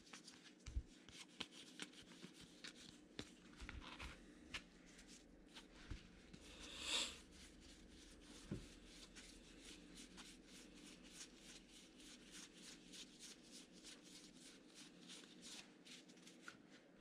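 Faint clicks and rustles of 2020 Gypsy Queen baseball cards being flipped through one by one by hand. The clicks come quicker and more evenly in the second half, with a brief louder rustle about seven seconds in.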